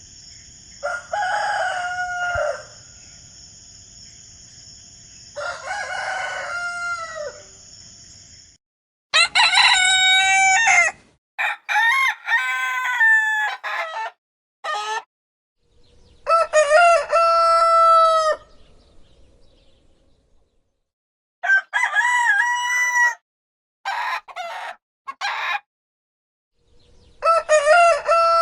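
Roosters crowing cock-a-doodle-doo, about eight separate crows one after another with short silent gaps between them, some cut short. A steady high-pitched tone runs behind the first two crows and stops before the third.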